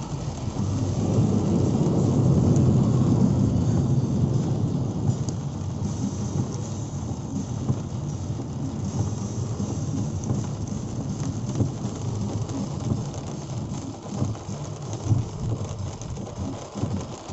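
Heavy rain with a deep rumbling wash, loudest a couple of seconds in and then easing a little.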